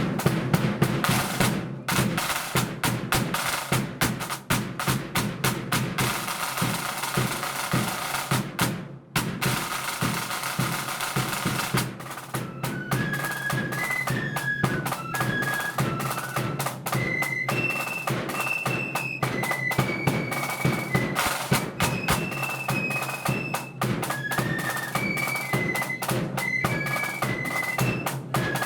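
Marching flute band: snare drums play rapid rolls over a bass drum beat, with a short break partway through. About halfway in, the flutes enter with a high melody over the drumming.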